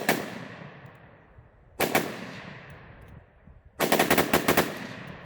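Gunfire from a short-barrelled AR-15 pistol in 5.56 with a Fostech Echo binary trigger, which fires on both the pull and the release: a quick pair of shots at the start, another about two seconds in, then a longer rapid string near the end, each followed by a long echoing tail.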